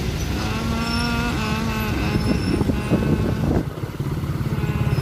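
Motorcycles and other vehicles running past in a motorcade, with a steady engine rumble. A vehicle horn sounds a long steady note twice early on, each about a second long.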